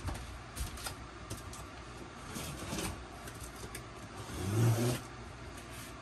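Handling and movement noise close to the microphone: a few light knocks and rustles, then a louder low rub lasting about half a second between four and five seconds in.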